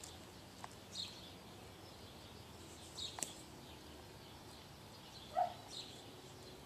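Quiet outdoor ambience with a few short, high bird-like chirps and a faint click, and one brief louder call about five seconds in.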